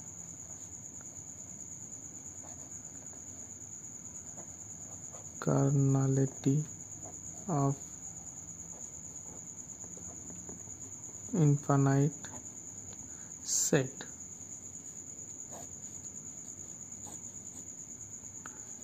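Steady high-pitched trill of crickets, with a man's voice heard briefly a few times.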